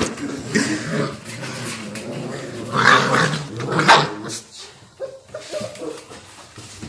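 Barbet dog growling in play, with two short, louder barks about three and four seconds in, as an orange plastic drainage pipe is pushed and rolled on the tile floor.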